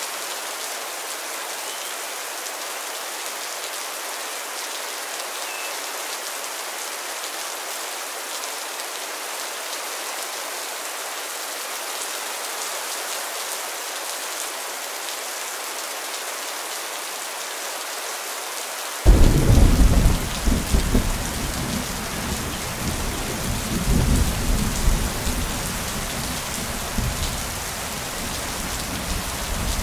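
Steady rain falling. About two-thirds of the way through, thunder breaks in suddenly with a deep rumble that rolls on in swells and eases off near the end.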